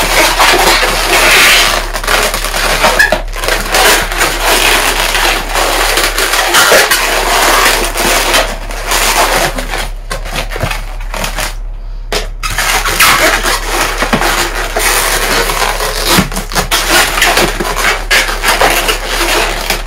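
Green latex modelling balloons rubbing against each other and against the hands as they are twisted and locked together into a figure, with a brief pause a little past halfway.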